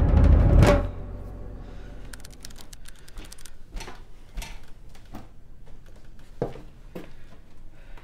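A loud drum hit under a second in ends the music score. A quiet room follows, with a quick run of light clicks about two seconds in and then scattered soft knocks.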